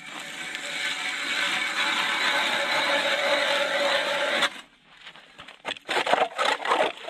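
Hand ice auger boring through thin first ice, about 8 cm thick: a steady grinding scrape of the blades cutting ice that stops abruptly about four and a half seconds in, followed by a few irregular scrapes and knocks.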